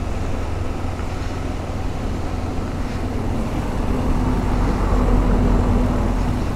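Motorcycle engine running steadily while riding, with road and wind rumble on the microphone; the engine note swells slightly about four seconds in.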